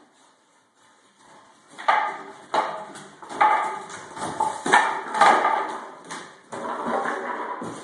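Rottweiler puppy barking in play: a string of short, sharp barks, with a longer drawn-out growl-like sound near the end.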